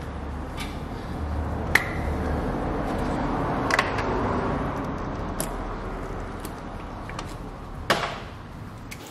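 Hands fitting the positive terminal clamp and its plastic cover onto a car battery post: a handful of sharp clicks and knocks over a low rustling handling noise, the loudest click about two seconds in and another near the end.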